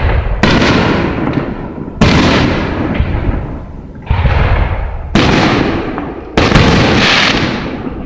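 Aerial firework shells bursting in a show, five loud booms about one to two seconds apart, each trailing away over a second or more before the next.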